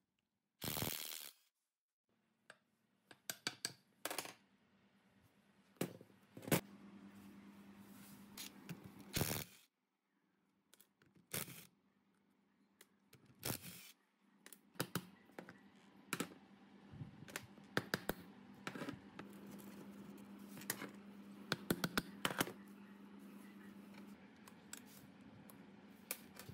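Hand tools clinking, tapping and scraping against the dirty cast head, valve plate and cooling fins of an old air compressor being stripped and cleaned: a string of sharp metallic clicks and knocks, with a low steady hum behind much of it.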